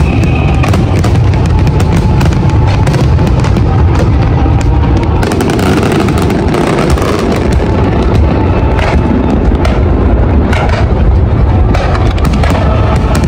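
Fireworks display: many sharp bangs and crackles in quick succession over a dense low booming, with music playing throughout.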